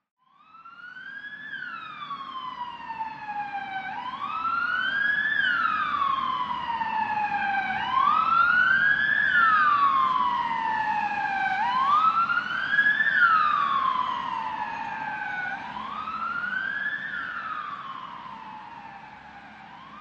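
Ambulance siren in a slow wail: each cycle sweeps quickly up in pitch and glides down more slowly, repeating about every four seconds. It starts from silence, grows louder to a peak around the middle, then fades toward the end as the vehicle passes, over a low road rumble.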